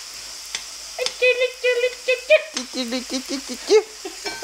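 Onions frying in a pan with a steady sizzle. A woman's voice makes a run of short repeated notes on one pitch about a second in, then wordless sliding vocal sounds.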